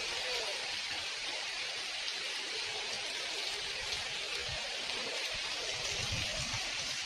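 Steady hiss of heavy rain falling, with a few low rumbles near the end.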